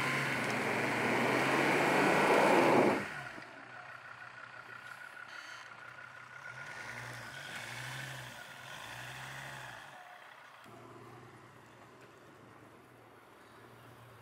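Off-road vehicle engine working hard under a loud rush of noise that cuts off suddenly about three seconds in. After that the engine runs more quietly, its pitch swelling and easing a few times.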